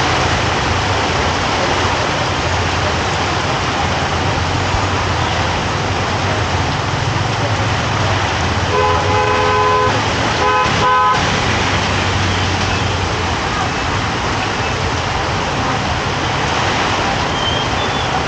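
A vehicle horn honks about halfway through: one held honk of about a second, then two short toots. Under it runs a steady hiss of rain and street traffic, with the low hum of an engine.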